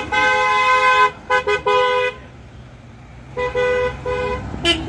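Car horns of passing off-road vehicles honking: one long blast, then a quick run of short toots, a pause of about a second, then three more short toots, with a different horn sounding briefly near the end.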